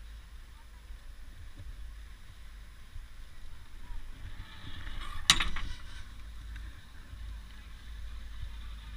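Wind rumbling on the microphone while riding a 1986 Gradio triple chairlift. About five seconds in there is one sharp metallic clack, with a couple of weaker clicks after it, as the chair's safety bar is raised before the top station.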